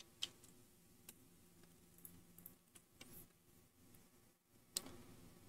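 Near silence with a handful of faint, scattered clicks from a computer mouse and keyboard, the clearest near the end.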